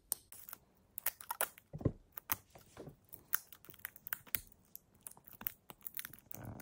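Small pink plastic toy capsule being twisted and pried open by hand: a run of irregular sharp plastic clicks and creaks, with one duller knock about two seconds in.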